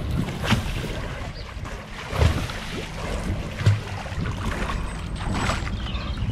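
River water sloshing and splashing around a swimmer in a buoyancy aid, close to the water, with a few sharper splashes standing out.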